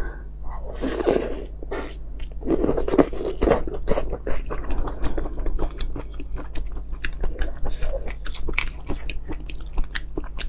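Close-miked eating of a giant red shrimp: biting and chewing in the first few seconds, then a run of sharp crackles and clicks as the shrimp's shell is cracked and peeled apart by hand.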